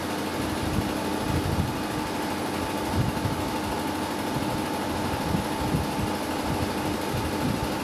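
Steady machine hum with a constant low tone over an even noise.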